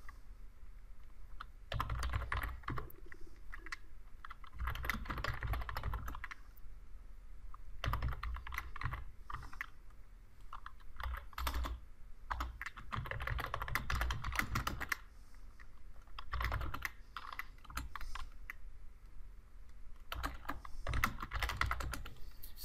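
Typing on a computer keyboard in short runs of keystrokes, each lasting a second or two, with brief pauses between them.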